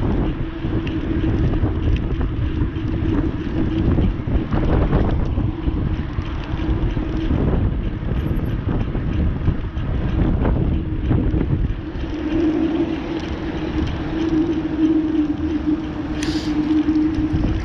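Strong wind buffeting the microphone of a moving cyclist, over a steady low hum that grows stronger in the second half. There is a brief high hiss near the end.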